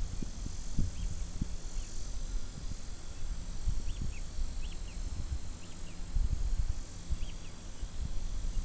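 Outdoor summer ambience: a steady high-pitched insect drone, with short high bird chirps every second or so and low wind rumble on the microphone.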